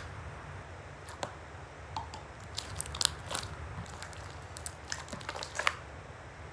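Slime being squeezed and kneaded by hand inside a plastic bag, giving irregular sticky clicks and crackles over a steady low hum.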